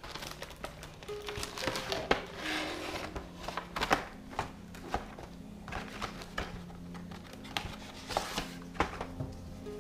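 Cardboard box and clear plastic packaging tray being handled and slid apart, with repeated crinkles, clicks and knocks, the sharpest about two and four seconds in, over background music.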